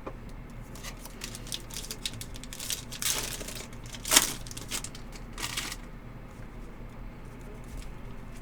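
Trading cards and their wrappers being handled: a quick run of small clicks and crinkles, with three louder rustles in the middle, about 3, 4 and 5.5 seconds in.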